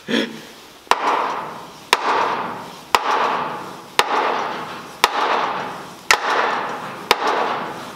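Mallet blows on the underside of a car engine, seven sharp knocks about once a second, each followed by a ringing decay. The part is stuck on with factory Ford sealant and does not come loose.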